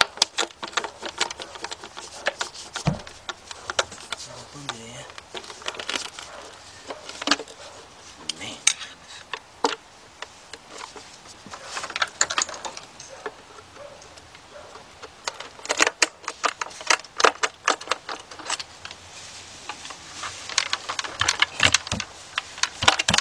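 A long screwdriver prying at the edge of a Ford Fiesta's stuck valve cover: irregular sharp clicks, taps and scrapes of metal on the cover, coming in runs. The cover stays stuck even with all its bolts out.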